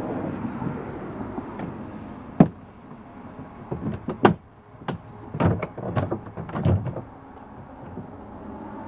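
Plastic car door trim being pried loose: a single sharp snap about two and a half seconds in, then a run of clicks, knocks and rattles from about four to seven seconds in as the trim works free.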